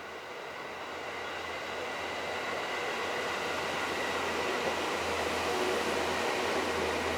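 Seibu New 2000 series electric commuter train approaching, its running noise growing steadily louder, with a faint steady whine over it.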